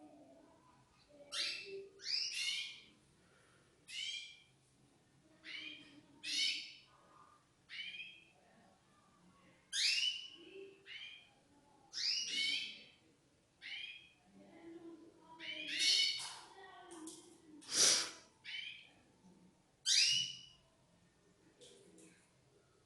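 Canaries giving short falling call notes, one every second or two, some in quick pairs, with the loudest near the end.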